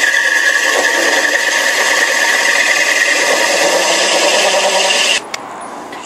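Drill press driving a hole saw through the vitreous china of a toilet cistern, with water poured on the cut: a steady, high-pitched grinding. It stops abruptly about five seconds in.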